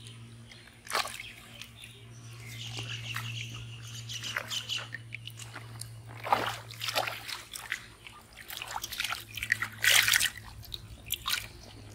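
Hands splashing and sloshing in shallow muddy water while feeling for and catching fish. Near the end there is a brief louder burst of splashing as live fish flap in a water-filled pot. A steady low hum runs underneath.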